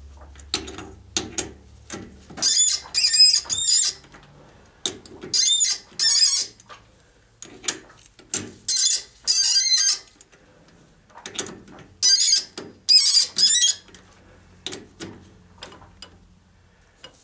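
A threading die held in locking pliers squealing as it is worked around a brass rod in a lathe chuck, cutting threads dry without cutting oil. The squeals come in groups of two or three every few seconds, with sharp clicks between them.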